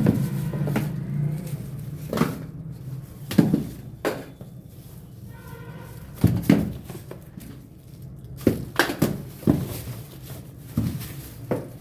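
Packaging and supplement containers being handled during an unboxing, giving about a dozen separate knocks and thunks at irregular intervals, over a low hum that fades after the first two seconds.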